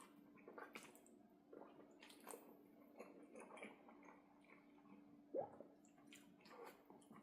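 Faint wet chewing and mouth sounds of someone eating: soft, irregular squishes and smacks, the loudest about five seconds in, over a faint steady hum.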